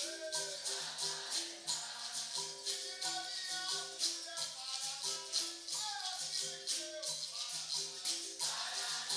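Capoeira roda music: a berimbau's two notes alternating in a steady rhythm over shaken caxixi and pandeiro jingles, with voices singing over it.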